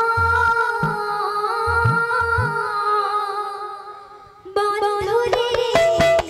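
Odia kirtan music: a long held note over low, pitch-bending strokes on a two-headed barrel drum, fading down until about four and a half seconds in. Then the band comes back in suddenly with quick drum strokes and sharp high strikes.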